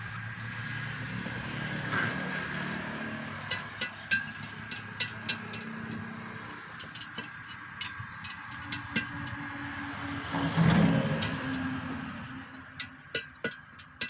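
Short metallic clinks and knocks of a steel tyre lever against a truck wheel's steel rim as the tyre bead is worked off, over a steady hum of passing road traffic. A vehicle goes by loudest about ten seconds in.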